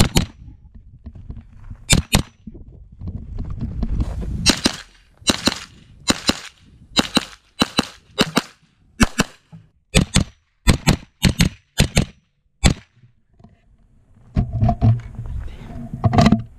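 SIG MPX pistol-caliber carbine firing a USPSA stage: sharp shots, mostly in quick pairs, about two dozen in all, stopping about 13 seconds in.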